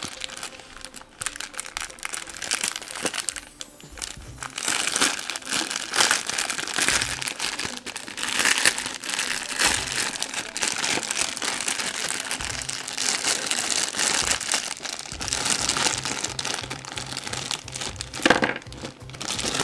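Clear plastic bag crinkling and crackling in irregular bursts as it is handled and worked open.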